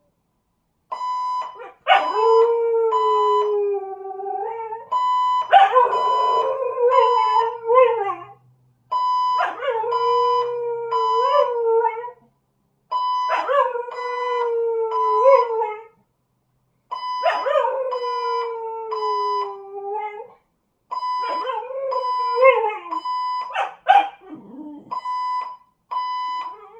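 A dog howling along to a beeping fire alarm: about six long howls, each sliding down in pitch and wavering at the end. The alarm's high beeping comes in bursts with short silent gaps between them.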